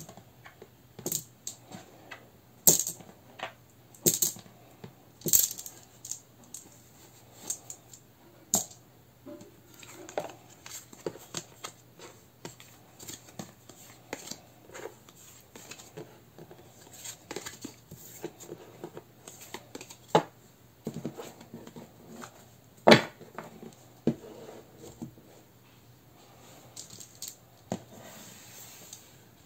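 Small stone rune discs clicking against each other as they are picked up and dropped into a cloth pouch, a run of sharp clinks, then tarot cards being slid and gathered into a stack on a wooden table, with a single loud click about two-thirds of the way through.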